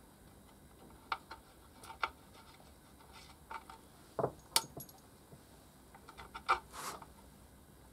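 Scattered light metallic clicks and clinks as screws are handled and set into the holes of a metal engine cover on a workbench, the sharpest about four and a half and six and a half seconds in.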